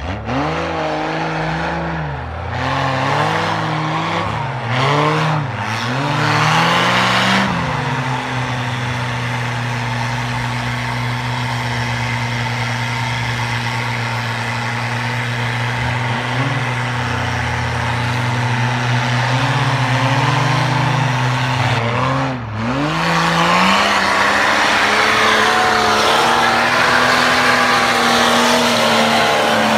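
Diesel engines of lifted off-road 4x4s revving hard while their tyres spin in snow. The revs swing up and down over the first several seconds, then are held high and steady, with one brief drop about two-thirds of the way through.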